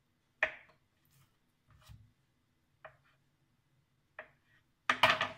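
A small kitchen knife clicking against a wooden board as it cuts slits around the edge of a ring of dough: a few separate light clicks, then a louder cluster of knocks near the end.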